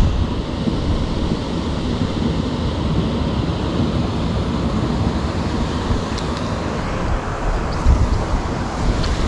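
Wind buffeting the microphone: a steady rushing noise, heaviest in the low end, with a few faint ticks in the second half.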